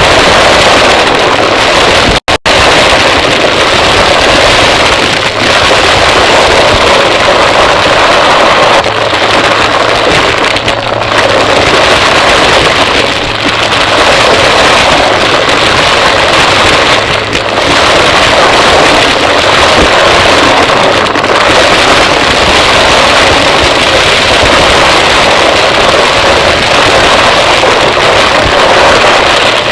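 Close-miked vacuum cleaner running, a steady loud motor-and-airflow rush that dips and swells every few seconds as it is pushed back and forth. The sound cuts out twice, very briefly, about two seconds in.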